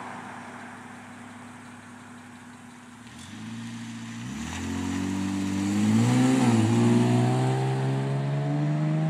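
Exhaust of a 2000 Acura TL's 3.2-litre V6 with aftermarket headers, mid muffler deleted and a Comptech axle-back: running steadily at first, then from about three seconds in the engine note climbs as the car accelerates, with a brief dip and recovery around six seconds before it keeps rising slowly and gets louder.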